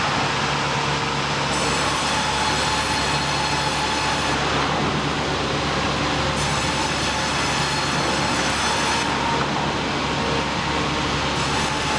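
Sawmill machinery running steadily: a continuous loud mechanical rumble with a constant high whine over it.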